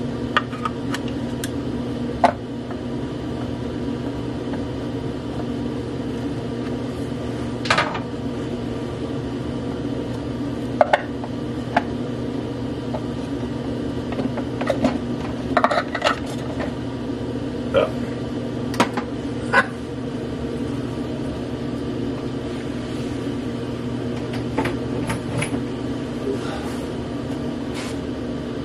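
Scattered light plastic clicks and knocks as Brussels sprouts are tipped into a plastic food processor bowl and the blade shaft is fitted into it, over a steady hum.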